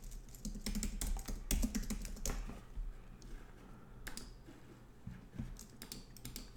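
Typing on a computer keyboard: runs of quick key clicks, in two spells with a thinner stretch in the middle.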